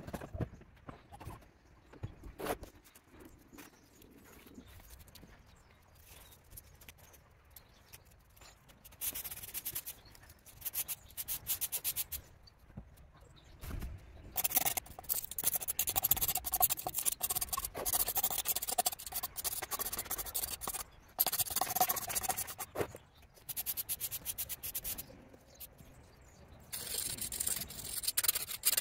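Repeated scraping and rubbing strokes of a hand tool worked over a surface. It is mostly quiet with a few light clicks for the first third, then the strokes come in runs, nearly continuous through the second half with short pauses.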